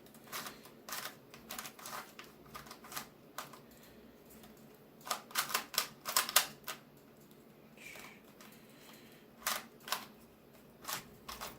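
QiYi 2x2x3 cuboid puzzle being turned fast during a timed speed solve: irregular flurries of quick plastic clicks, busiest about five to seven seconds in.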